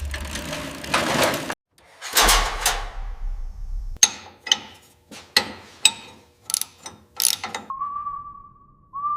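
Metal tools and parts clicking and clinking: about a dozen sharp, separate clicks with a short ring after each, following a brief rush of noise. Near the end, a steady high whistle-like tone begins.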